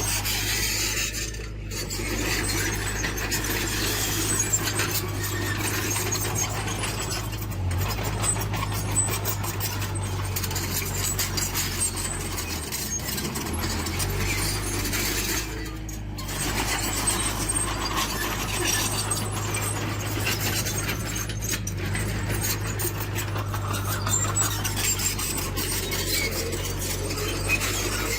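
Heavy earthmoving machinery at work: a diesel engine running steadily under rough scraping and grinding, with brief lulls.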